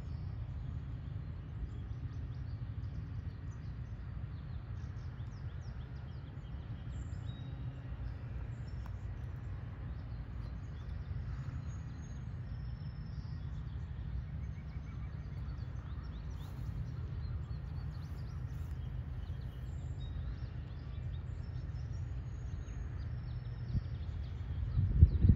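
Birds chirping over a steady low rumble, with a brief low thump near the end.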